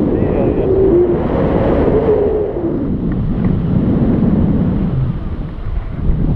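Wind buffeting the microphone: a loud, steady low rumble, with a faint wavering tone in the first couple of seconds.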